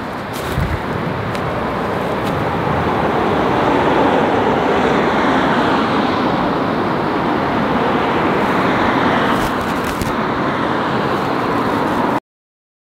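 Steady rush of road traffic passing over a concrete road bridge, swelling a little about four seconds in and cutting off suddenly near the end.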